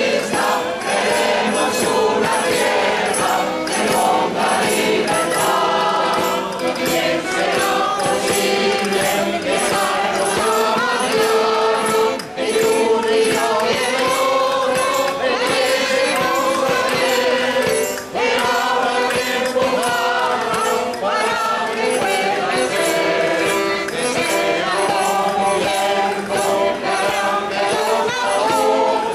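A choir of many voices singing a song together, over a steady beat of sharp taps.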